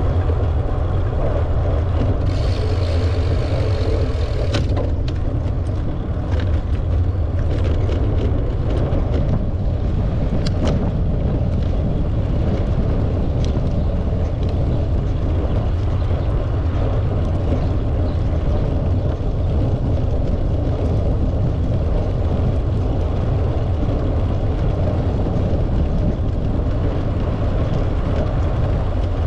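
Steady low rumble of wind buffeting the microphone of a camera on a moving bicycle, mixed with tyre noise from the path. A brief hiss comes about two seconds in, and scattered clicks follow over the next several seconds.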